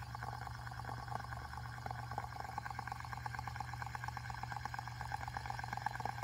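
Metal fidget spinner whirring on its bearing: a fast, fine, even rattle, with a low steady hum underneath.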